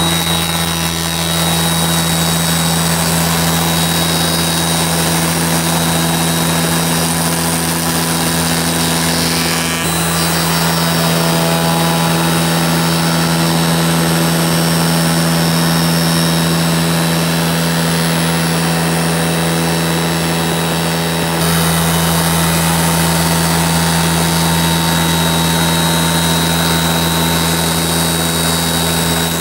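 CNC router spindle running a large panel-raising cutter through a cherry panel, a steady high-speed machine whine over a hiss of cutting. The tone shifts slightly about ten seconds in, and the sound grows a little louder about twenty-one seconds in.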